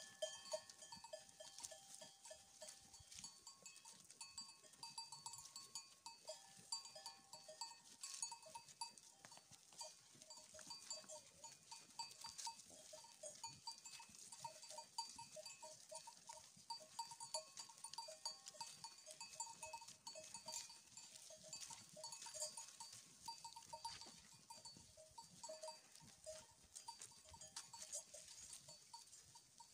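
Faint sound of a grazing sheep flock: a small bell clinks over and over at an uneven, quick pace, with soft clicks and crunches from the sheep moving and cropping among dry grass and leaves.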